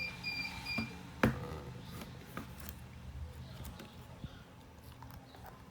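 A quick run of short, high electronic beeps at the start, then a sharp click about a second in and a few faint clicks and taps of handling over a low steady hum.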